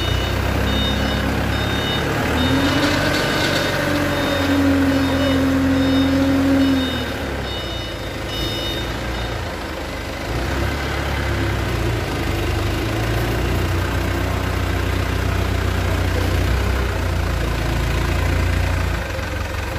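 A forklift's engine running under load, with its reversing alarm beeping in quick repeated pulses for the first half, which then stop. A whine rises and holds for a few seconds in the middle as the hydraulic mast lifts the pallet of rosewood boards.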